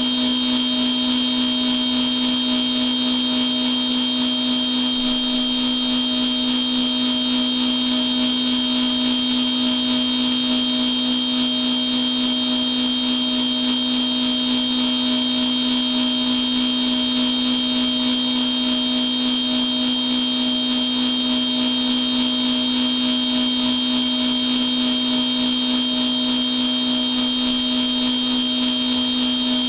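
Machine tool running a machining program without coolant and without cutting metal: a steady hum with a high whine over it, unchanging throughout.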